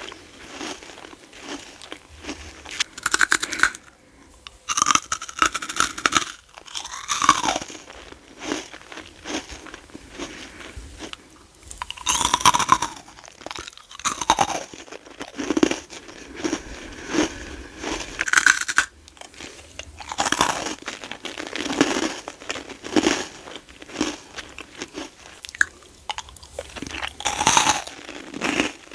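Close-miked chewing of crunchy freeze-dried candy: repeated crisp, brittle crunches in an irregular rhythm, with a few short pauses between mouthfuls.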